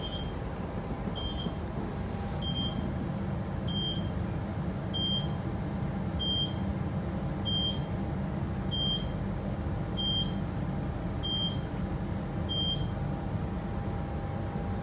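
Train door warning beeper on a New Generation Rollingstock carriage sounding eleven short, identical high beeps about every 1.2 seconds, stopping near the end, over the carriage's steady low hum.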